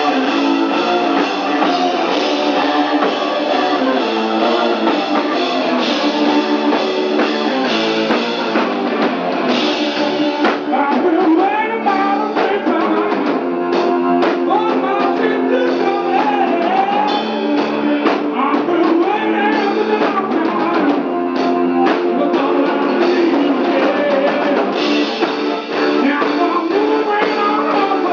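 Live rock band playing: electric guitars and a drum kit, with singing joining about ten seconds in. The sound is thin, with almost no bass.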